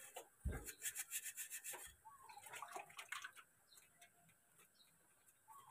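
Faint scrubbing of a gas stove burner part by hand, quick rubbing strokes that grow sparser and quieter after about two seconds. There is a low bump about half a second in.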